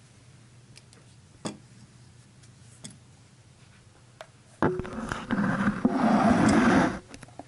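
Camera handling noise: fingers rubbing and scraping right over the microphone for about two seconds near the end, loud and rough. Before it there are a few faint clicks.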